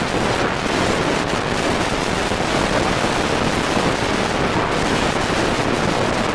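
Large hailstones pelting a car, a dense, continuous clatter of many hits.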